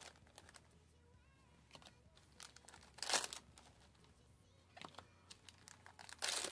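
Trading cards and a foil booster-pack wrapper being handled: a short crinkly rustle about three seconds in and another near the end, with light clicks of cards between them.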